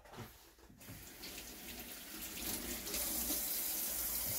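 Kitchen sink faucet running as a peeled onion half is rinsed under it. The water comes on about a second in and grows louder over the next couple of seconds, then runs steadily.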